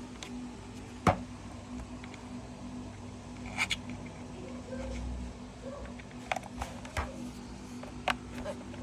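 A few sharp clicks and taps from an Akai MPK Mini Play keyboard controller being handled, the loudest about a second in, over a low steady hum.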